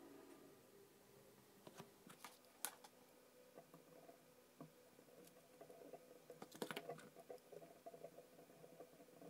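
Near silence with a faint room hum and scattered small clicks and taps, a cluster about two seconds in and another about seven seconds in, from handling a wire and soldering iron at a helping-hands clamp while soldering a wire onto a small connector.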